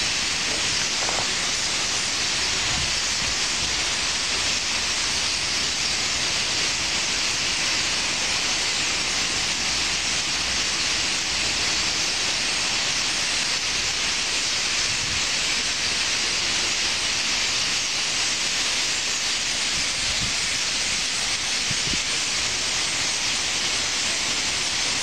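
A huge flock of common starlings calling all at once as they gather at their roost trees, blending into a steady, dense high-pitched hiss in which no single call stands out.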